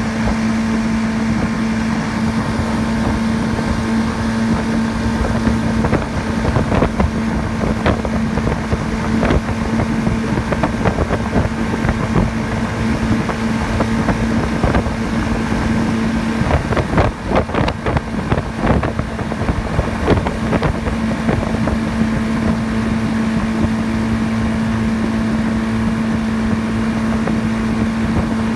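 V4 outboard motor running steadily at speed under load, its engine note over the rush of the wake and wind on the microphone. Through the middle stretch come irregular thumps and slaps, and the engine note dips for a few seconds.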